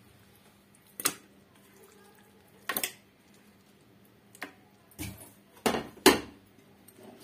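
About six separate knocks and clunks of a plate and raw chicken pieces against the plastic bowl of a food processor as the chicken is tipped in, the last few loudest.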